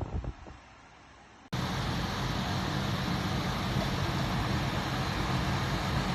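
Hisense portable air conditioner running: a steady fan and compressor hum with a broad airy hiss, starting abruptly about a second and a half in. Before it come a few brief faint knocks.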